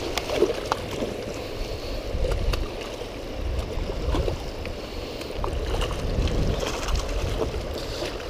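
Shallow stream water running over rocks, with scattered small splashes and knocks from someone wading through it, and uneven low rumbles.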